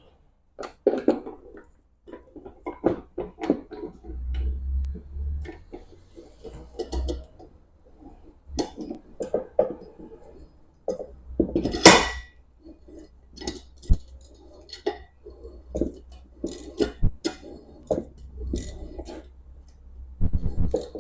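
Steel parts of a shop-made C-clamp clinking and knocking together as it is assembled: the threaded-rod lead screw, nuts and swivel pad handled against the pipe frame. Scattered irregular metallic clinks and taps with brief ringing, the loudest knock about twelve seconds in.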